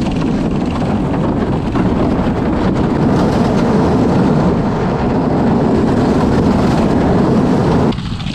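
Gas mini bike engine running hard as it tows a sled across lake ice, with the sled scraping and rattling over the ice. The noise drops sharply just before the end as the bike slows to a stop.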